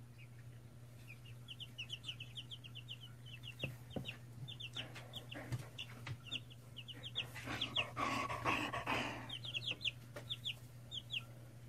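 Young chicks, about three weeks old, peeping in quick runs of short, high, falling peeps. A brief louder noise comes about eight seconds in, over a steady low hum.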